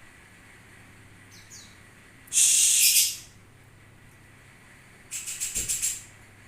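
A songbird calling: two short falling whistles, then a loud harsh chattering burst lasting under a second, and near the end a rapid rattle of about nine pulses a second.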